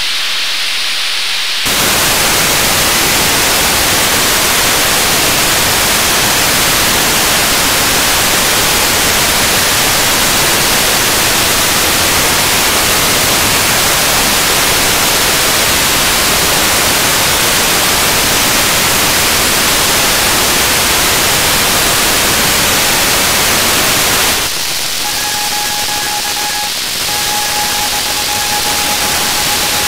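Radio receiver static from an SDR tuned to the Athenoxat-1 satellite's 437 MHz downlink. A steady hiss turns louder and brighter about two seconds in and drops back near the end, when a steady beat tone of the satellite's carrier comes in and breaks once briefly.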